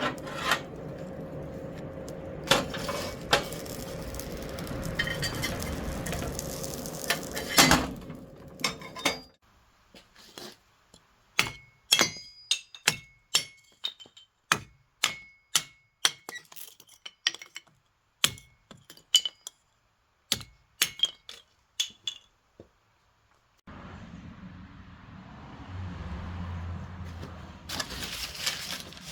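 Hammer blows on steel at an anvil: a run of sharp, irregular strikes, each with a short bright metallic ring, roughly two a second. Before and after them comes a steady rushing noise with a low hum.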